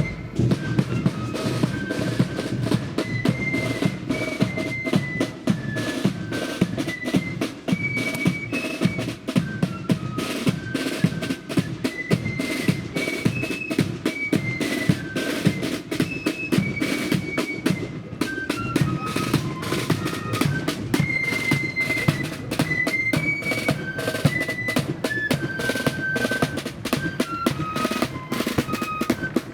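Marching flute band playing a tune: flutes carrying a stepwise melody over rapid snare drumming and the steady beat of a big bass drum.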